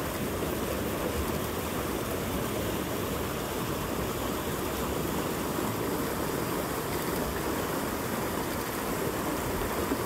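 Rain-swollen creek rushing steadily, an even wash of flowing water.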